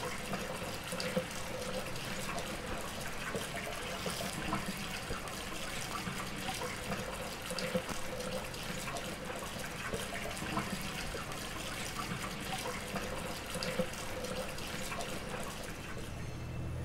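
Running water, like a tap: a steady splashing hiss with many small crackles. Near the end a low steady hum comes in.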